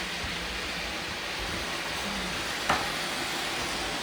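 Robot vacuums running, a steady whirring hiss of their motors and brushes, with one short knock about two and a half seconds in.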